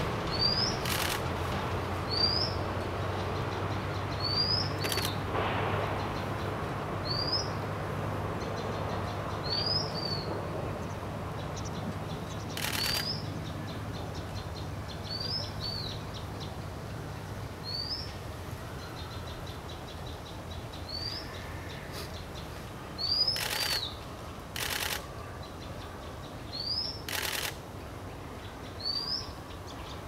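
A taiga flycatcher calls with a short, high, rising note, repeated about every two seconds, some notes ending in a quick downward hook, with faint dry rattles between them. Several brief bursts of noise break in, the loudest about three quarters of the way through.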